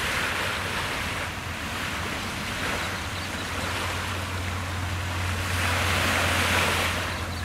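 Small waves breaking and washing up a sandy shore, the wash swelling at the start and again near the end, with a steady low rumble of wind on the microphone.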